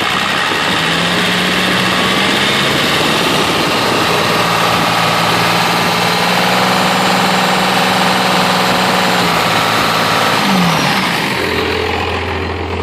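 1997 Cummins 12-valve 5.9 L inline-six diesel running under load with a loud, harsh exhaust note, the funny jake-brake-like sound its owner is trying to show. About ten and a half seconds in the pitch falls and the engine drops back to a steady low idle.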